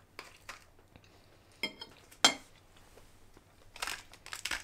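Metal fork clinking against a ceramic pasta plate at a meal: a few light clicks, a ringing clink about a second and a half in, a sharp clink just after two seconds, then a cluster of clinks near the end.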